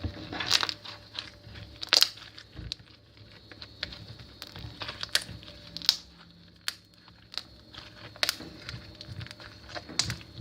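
Glue slime being kneaded and stretched by hand, with irregular sticky clicks and pops as air pockets in it burst.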